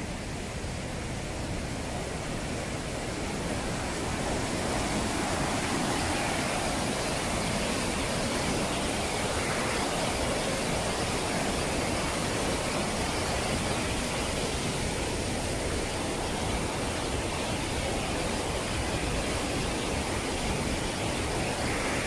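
Rushing whitewater of Ryūzu Falls, a long cascade over rock: a steady wash of noise that swells over the first four seconds or so and then holds level.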